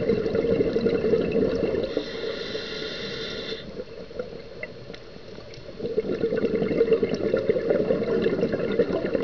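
Scuba regulator breathing heard underwater: a rush of exhaled bubbles, a higher hiss of an inhale about two seconds in, a quieter lull, then another stream of bubbles from about six seconds in.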